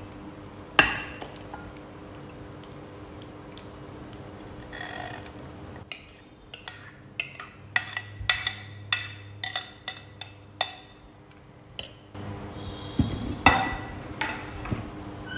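Spoon clinking and scraping against a white pot tipped over a glass bowl as the coconut-milk mixture is emptied onto the bananas. A single knock comes about a second in, then a quick run of sharp clinks about six seconds in. It ends in louder clattering as the spoon stirs in the glass bowl near the end.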